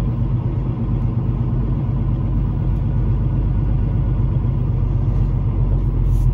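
Semi truck's diesel engine running steadily, heard from inside the cab as a deep, even drone.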